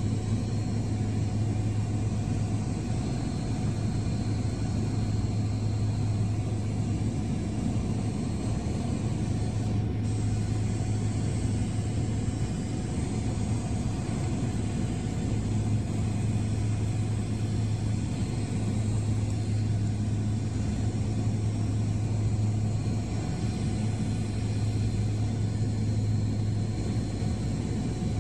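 Steady engine drone of an aircraft heard from inside its cabin: a constant low hum with faint unchanging whines above it.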